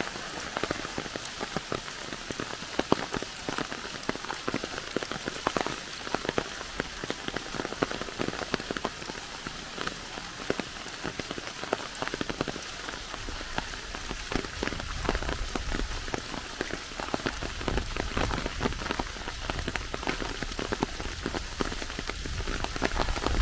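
Steady rain falling in a forest, a constant hiss with many close individual drops ticking on leaves. A low rumble comes in about halfway through and grows stronger near the end.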